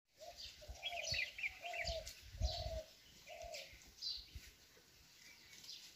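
A dove cooing, five short low coos in the first three and a half seconds, with small birds chirping higher in the first two seconds.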